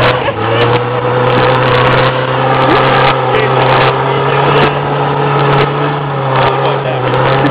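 Pickup truck engine running steadily under load while towing a car hood on a chain through snow, with scattered short knocks.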